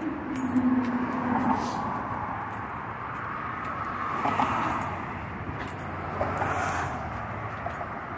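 Road traffic on the bridge's roadway beside the walkway: a steady rush of tyre noise that swells and fades as cars pass, with a low hum in the first second and a half.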